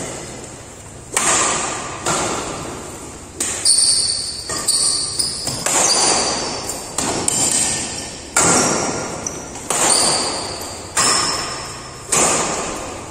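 Badminton doubles rally: rackets hitting the shuttlecock about once a second, each hit echoing in a large hall. Short high squeaks, as from shoes on the court floor, come between the hits.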